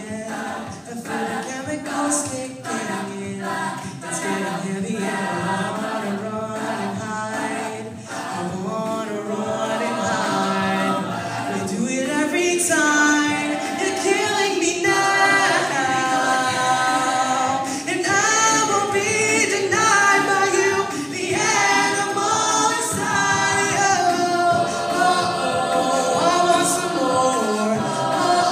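Mixed-voice a cappella group singing close harmony with no instruments. Sharp vocal-percussion hits keep the beat for the first several seconds, then the voices swell into louder held chords about halfway through.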